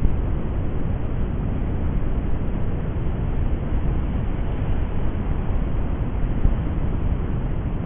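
Steady low rumbling noise with no distinct tones or knocks.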